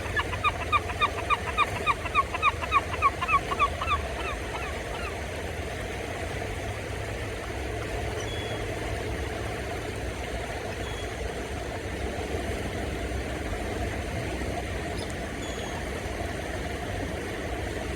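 Geese honking in a rapid series, about four calls a second, that stops about four seconds in. A steady low rumble carries on underneath, with a few faint bird chirps later.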